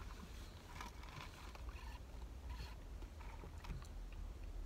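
Faint sipping of iced cold brew through a plastic straw, with scattered small ticks and rustles, over a low steady rumble in a car cabin.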